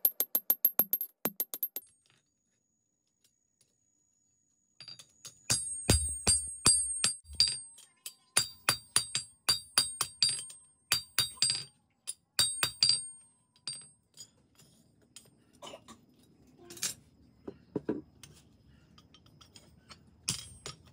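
Hammer blows on a red-hot steel axe head on an anvil, each strike ringing bright and metallic. A quick run of blows opens, then a short silence; after that comes a long run of strikes about three or four a second, and the last part has lighter, sparser taps.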